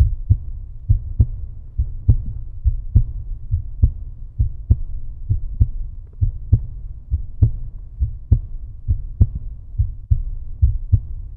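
Low, regular thumping pulse like a heartbeat: a strong beat a little under once a second, with weaker thumps between.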